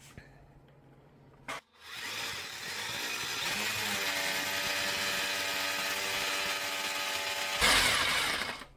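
Electric drill running and drilling a mounting hole: the motor whine builds up and holds steady for several seconds, then turns louder and harsher near the end as the bit cuts, and stops.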